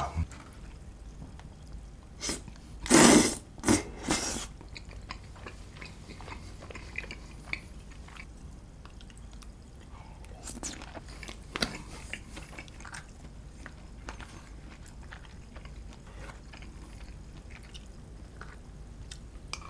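Close-miked chewing and biting of tteokbokki with sausage toppings: steady small wet chewing clicks, with a few louder bites about three to four seconds in.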